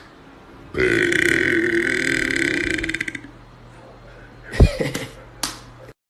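A man's long, loud burp lasting about two and a half seconds, held on one pitch. It is followed by two short knocks a little under a second apart.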